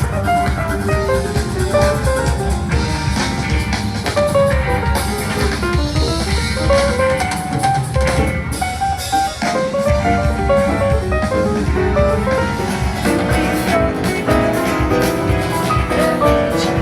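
Music with drums and guitar: a melody of short stepping notes over a steady beat.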